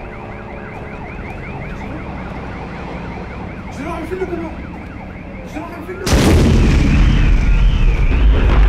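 Several sirens wailing at once, their rising sweeps repeating about twice a second. About six seconds in, a sudden loud blast breaks in, followed by a heavy low rumble that carries on, with a siren warbling over it.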